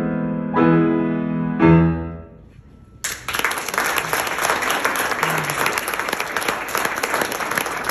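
Grand piano playing the closing chords of a piece, the last one struck loudly about two seconds in and left to ring out. After about a second of quiet, an audience breaks into applause.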